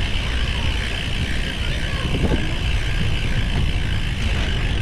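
Steady wind rumble and road noise while riding a road bicycle, picked up by an action camera's microphone.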